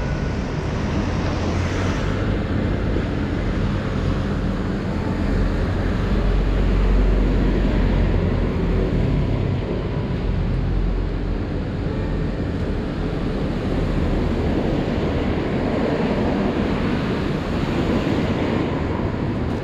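Steady noise of traffic on a rain-wet street, with wind buffeting the microphone; it swells a little about seven seconds in.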